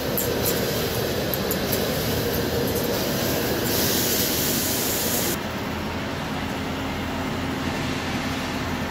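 CNC vertical turning lathe cutting a large forged ring, with a steady machine drone and coolant spray hiss. A stronger hiss swells about halfway through, then cuts off suddenly, leaving a lower, quieter machine hum.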